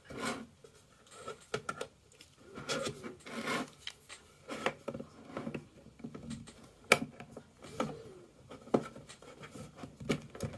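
Flathead screwdriver scraping and prying at the casing of a CD/DVD optical drive to open it, in irregular scrapes and rubs with scattered sharp clicks; the loudest click comes about seven seconds in.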